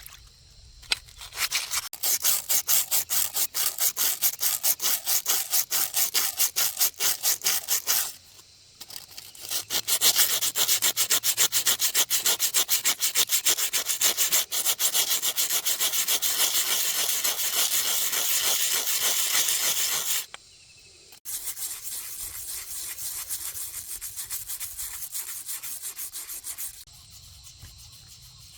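Hand sanding: rapid back-and-forth rubbing strokes, several a second, with two short pauses and lighter strokes in the last stretch before they stop near the end.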